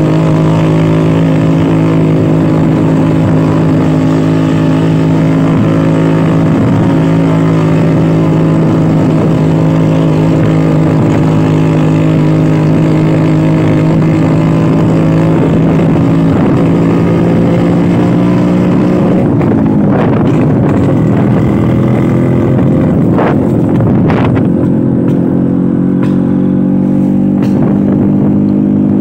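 Vintage Vespa scooter's two-stroke engine running steadily while riding. Its pitch drops and climbs back twice about two-thirds of the way through.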